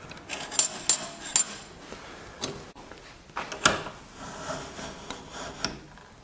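Sharp metal clicks and clinks from a Woodland Mills bandsaw blade tooth setter as a bandsaw blade's teeth are pressed into its anvil to set them: three quick clicks in the first second and a half, then a few more spaced about a second apart.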